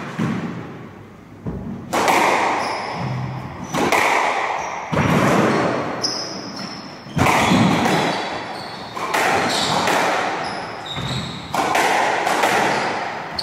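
Squash rally: racquet strikes and the ball smacking the court walls, a sharp hit every one to two seconds, each trailing off in a hall echo. Short high shoe squeaks on the wooden floor come between the hits.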